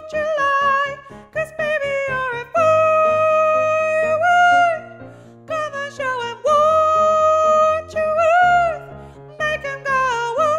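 One voice singing the tenor line of a choral arrangement in long held notes with short slides between them, no clear words, over piano accompaniment playing repeated chords.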